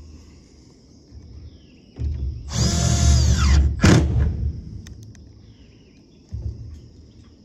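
Cordless driver spinning a 1-inch rubber-washered roofing screw down through a corrugated plastic roof panel. The motor whines for about a second and a half, its pitch sagging as the screw seats, and a sharp knock follows. A shorter, weaker run of the driver comes near the end.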